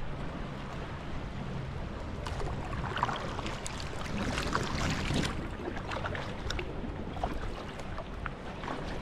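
Water splashing and dripping around a sea kayak being paddled, with a busier stretch of splashes between about two and five seconds in, over a steady low rumble of wind on the microphone.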